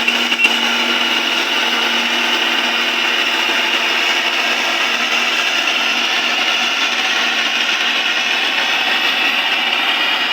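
Marksan MS700 combine harvester running with a steady mechanical whirr, with a couple of brief knocks about half a second in.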